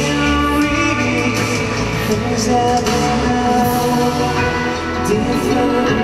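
Pop band music with singing: held synthesizer chords, bass and drums under a vocal line.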